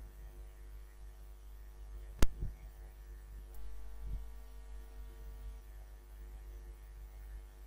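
Steady low electrical mains hum on the recording, with one sharp click about two seconds in and a fainter click right after it.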